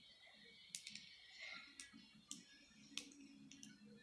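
Near silence with a few faint, sharp clicks spaced irregularly through it.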